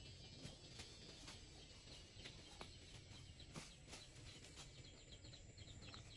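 Faint outdoor ambience: birds chirping, with a quick run of short chirps in the second half, and scattered soft clicks.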